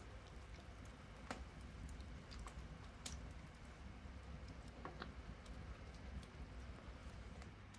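Wood fire crackling faintly under a steaming pot of soup: scattered sharp pops a second or two apart over a low steady rumble.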